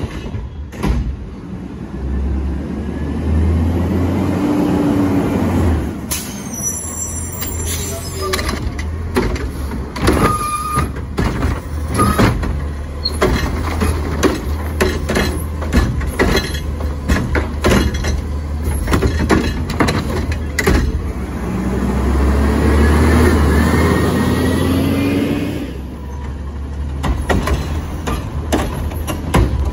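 Autocar ACX garbage truck's diesel engine running, revving up twice as it drives the hydraulics of its Curotto-Can arm, with bangs and clatter of recycling carts being lifted, shaken and dumped into the can.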